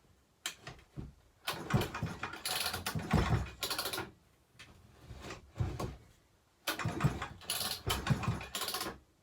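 Homelite XL12 two-stroke chainsaw cranked by its recoil pull-starter: two long pulls and two short ones, the engine turning over against its compression without starting. It has some compression, though not a lot, after new rings in a worn cylinder and a raised exhaust port.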